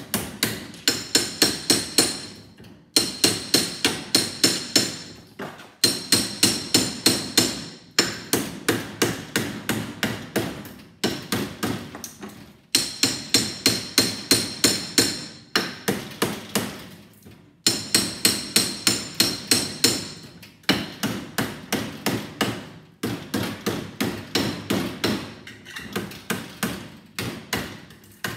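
Claw hammer striking a long steel bar against a microwave oven transformer in a vise, driving its copper winding out of the steel core. The blows come in quick runs of about four a second, each with a metallic ring, broken by short pauses.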